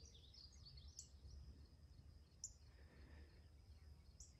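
Quiet rural dawn ambience: scattered short bird chirps, several of them sharp upward-sweeping notes, over a faint steady high insect-like tone and a low rumble.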